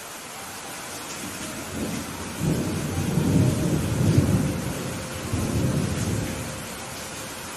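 Steady rain hissing, with a long rumble of thunder rolling in about two seconds in, swelling and then fading away near the end.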